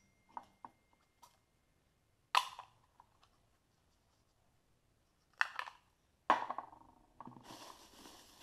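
Plastic wrapping crinkling and polystyrene packing blocks rubbing as they are handled: a few sharp rustles about two and a half, five and a half and six seconds in, then continuous rustling near the end.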